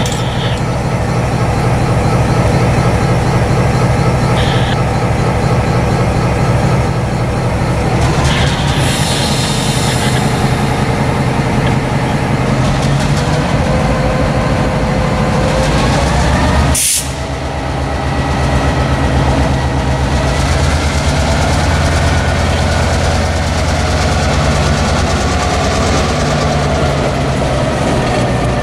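Norfolk Southern diesel locomotive idling with a steady low drone. There are short bursts of air hiss, the sharpest about 17 seconds in, and then the engine revs up as the locomotive starts moving its cars.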